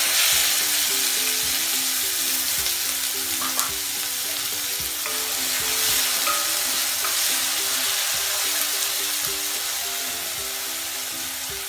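Chopped tomato and green chilli sizzling loudly in hot oil in a steel kadhai, the sizzle fading slowly as they are stirred with a wooden spatula.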